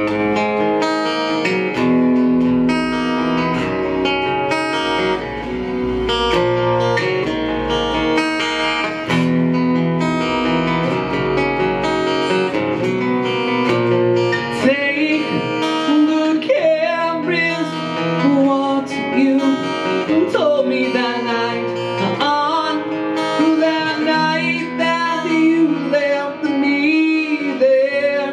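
Acoustic guitar playing the intro of an acoustic rock song. A man's singing voice comes in over the guitar about halfway through.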